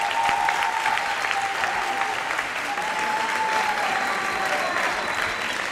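A large audience applauding: many hands clapping together at an even, steady level.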